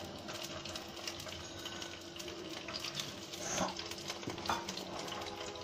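Quiet sizzle of oil frying whole potatoes and peeled boiled eggs in a non-stick pan, with a couple of soft knocks in the middle as the eggs are set into the pan.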